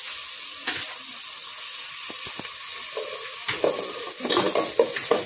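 Sliced onions and garlic sizzling in hot oil in a metal pot, stirred with a slotted plastic spatula that scrapes and taps against the pot; the stirring strokes come thicker over the last couple of seconds.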